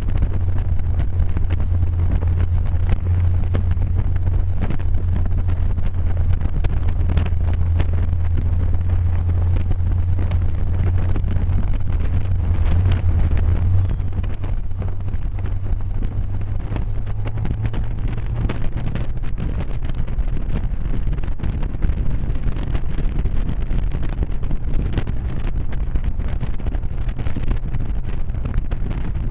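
A car driving, heard on board: a steady low engine drone with wind buffeting the microphone. About halfway through the drone eases off, then settles at a slightly higher pitch.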